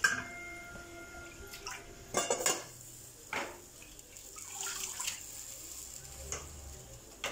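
Water sloshing and splashing in a plastic basin as a wet cloth is dunked, squeezed and lifted by hand, with a few short splashes and light knocks against the basin and sink.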